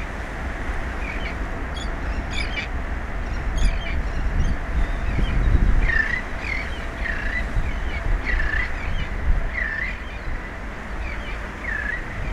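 Birds calling: a series of short, repeated calls, about six of them from mid-way on, with fainter higher chirps earlier, over a steady low rumble of wind on the microphone.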